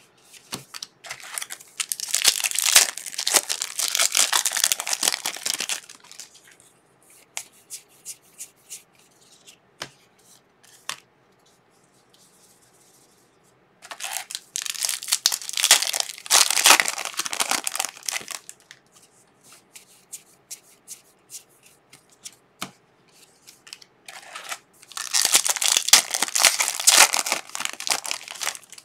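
Foil trading-card pack wrappers crinkling and tearing open by hand in three long bouts: about a second in, near the middle, and near the end. Light clicks of cards being handled fall in between.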